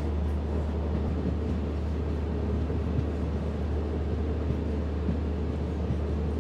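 Steady running noise of a diesel multiple-unit passenger train, heard from the open doorway of the moving coach: an even low rumble with no horn or sudden knocks.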